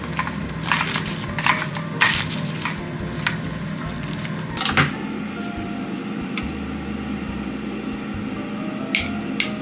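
Wet parchment paper crinkling and rustling in irregular bursts as it is pressed into a small aluminium loaf pan, over a steady low hum.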